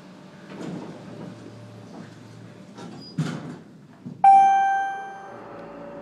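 Inside an elevator car: a rumble and a sharp clunk of the elevator door about three seconds in, then a single loud chime ding a second later that rings out and fades over about a second.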